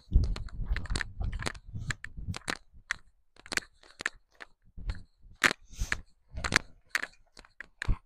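Footsteps crunching through dry leaves and twigs, a run of irregular crunches and snaps.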